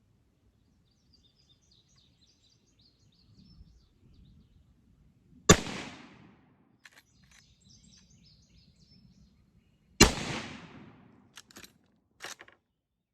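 Two shots from a Westernfield Model 30A .30-30 lever-action rifle, about four and a half seconds apart. Each is a sharp crack with a decaying echo, and a few short metallic clacks follow the second shot.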